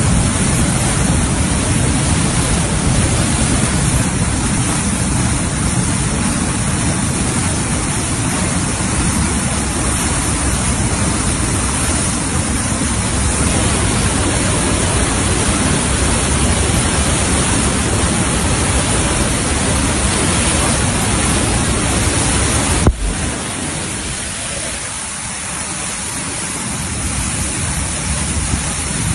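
Muddy flash-flood water rushing down a rocky channel: a loud, steady rush of water with a heavy low rumble. About three-quarters through there is a single sharp click, and the low rumble eases after it.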